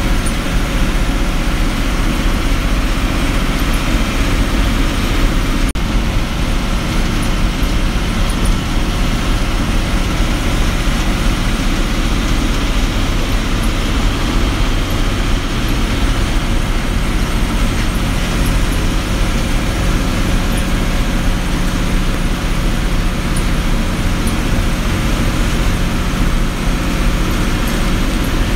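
Steady engine drone and road noise of a roadways bus under way, heard from inside the cabin near the front.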